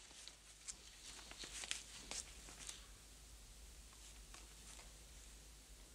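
Near silence: quiet room tone with a few faint clicks and rustles in the first three seconds.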